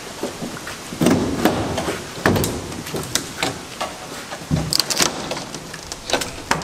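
Irregular knocks, clatters and rustles from handling a newly delivered sandblasting cabinet and its parts, with louder stretches about a second in and again a little over two seconds in.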